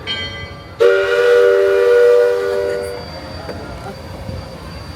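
A bell strikes once, then a chime steam whistle sounds a single blast of about two seconds: several tones at once, forming a chord, before it fades. A low rumble runs underneath.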